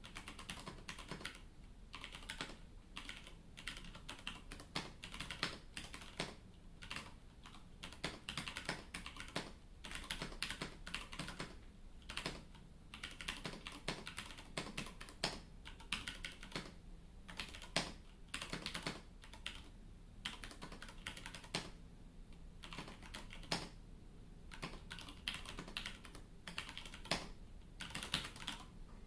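Typing on a split ergonomic mechanical keyboard: rapid, irregular keystroke clicks in flurries with brief pauses.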